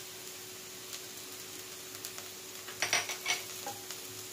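Diced vegetables frying faintly in a nonstick kadai, with a few quick scrapes and taps of a wooden spatula against the pan about three seconds in.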